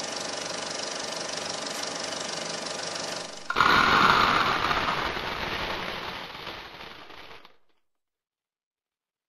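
Film projector running with a steady mechanical clatter. About three and a half seconds in, a sudden, louder burst of popcorn popping takes over and fades out over the next four seconds.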